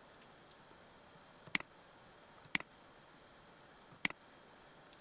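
Computer mouse button clicking three times, a second or so apart, each a short sharp click, selecting tiles.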